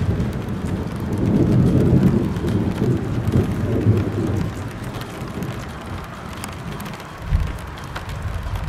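Rolling thunder, a deep rumble that swells for a few seconds and slowly dies away, over a steady hiss of rain. A short low thump comes near the end.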